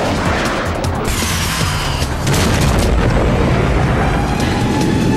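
Film-soundtrack music mixed with the booms of stunt explosions, with a heavy blast a little after two seconds in that keeps the level up afterwards.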